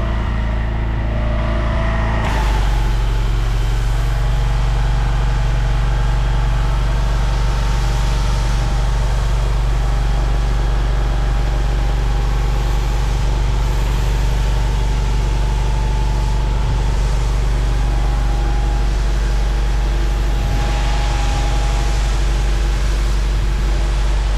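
Pressure washer engine running steadily, with the hiss of the rinse nozzle's water spray starting about two seconds in and running on as the driveway is rinsed down.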